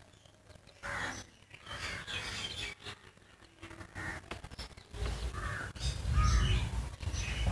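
Faint background with short bird calls, crow-like caws among them, and a low rumble that starts about five seconds in.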